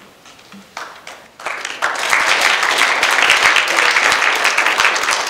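Audience applauding: a few separate claps about a second in, then full, dense applause from about two seconds in.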